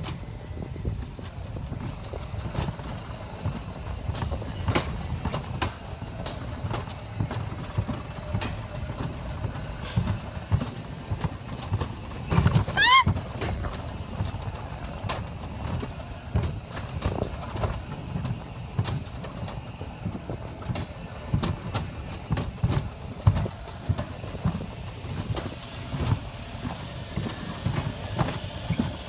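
Rumble and rattle of a bobsled-style coaster cart running down its steel-tube track, with scattered clicks and knocks. A brief rising squeal comes about halfway through.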